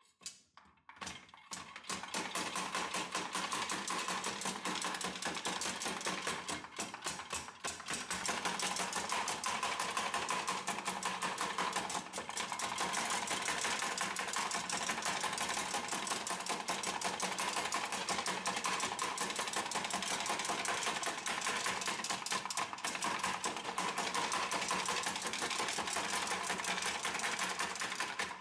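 Restored 1865 L.S. Starrett hand-cranked food chopper chopping a carrot: its cast-iron mechanism and blade clatter in a rapid, steady rhythm. It starts with a few slow strikes, then settles into fast chopping after about two seconds.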